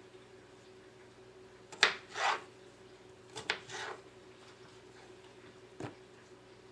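Kitchen knife knocking and scraping on a plastic cutting board while cutting cucumber: a sharp knock about two seconds in followed by a short scrape, another knock and scrape near the middle, and a single knock near the end.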